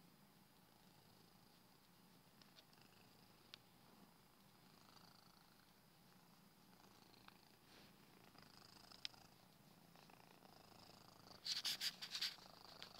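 Small black-and-white domestic cat purring, faint and steady, with a brief cluster of loud scratchy noises near the end.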